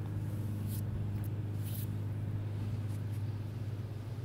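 A steady low hum with a few faint, brief clicks and scrapes of small parts being handled, as the spider gears are taken out of an RC truck's differential.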